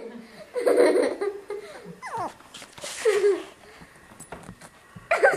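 Small fluffy dog whining and yelping in a few short cries, one sliding steeply down in pitch about two seconds in.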